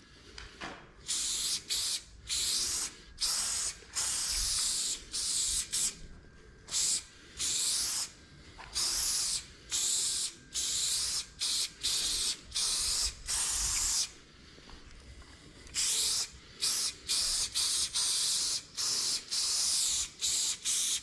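Aerosol spray paint can hissing in many short bursts, each a fraction of a second to about a second long, as lines are sprayed onto a wall. There is a longer pause about two thirds of the way through.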